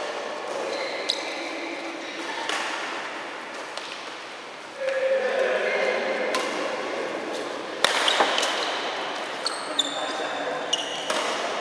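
Badminton rally: rackets smacking the shuttlecock with sharp cracks, the loudest about eight seconds in, and sneakers squeaking on the court floor. Voices talk in the background.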